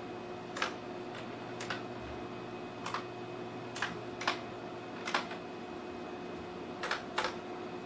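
Computer keyboard keys pressed one at a time, about nine single clacks at uneven gaps of half a second to a second and a half, as BIOS menus are paged through. A steady low hum runs underneath.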